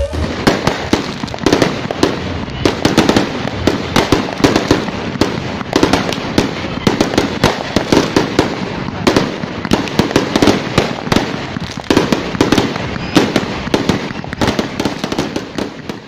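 Fireworks display: aerial shells bursting in a rapid, irregular run of sharp bangs and pops, several a second, over a continuous crackle.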